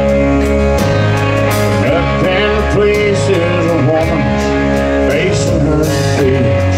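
Live band playing: a lead electric guitar with bending notes over strummed acoustic guitar, bass guitar and a drum kit with steady cymbal strokes.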